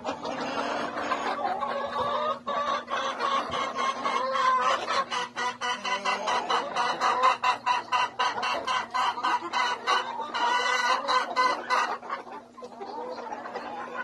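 A mixed flock of laying hens (Rhode Island Red, Barred Plymouth Rock and Black Australorp) clucking and calling all at once in dense, overlapping chatter. It eases off briefly near the end.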